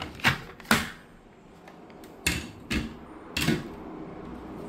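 Handling noise on a monitor's plastic back casing: about five sharp clicks and knocks, spaced irregularly.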